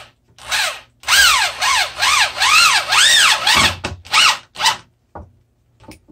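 Corded electric drill driving a wood screw into a board, the trigger feathered so the motor whine rises and falls over and over, ending in a few short bursts.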